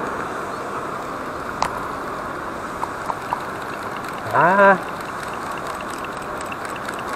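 Steady outdoor background noise with a few light clicks of a spinning reel and rod being handled, and a man's short exclamation, rising in pitch, about four seconds in.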